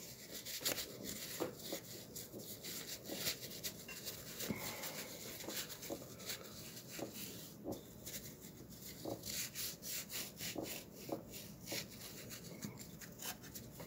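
A wad of paper towel rubbing over the metal of a Suffolk small engine, wiping cleaning agent off a test patch: faint, irregular short wiping strokes, one after another.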